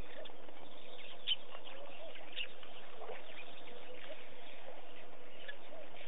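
Many small wild birds chirping and calling, with one louder chirp about a second in, over a steady hiss of background noise.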